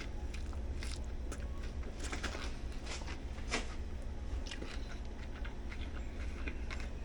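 Scattered small clicks and crackles of a sub sandwich being handled and eaten, over a steady low hum.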